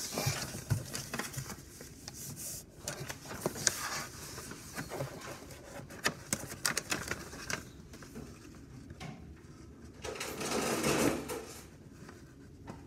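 Sheets of paper rustling and crinkling as they are moved, unfolded and handled on a desk, with many light taps and knocks; a louder, longer rustle about ten seconds in.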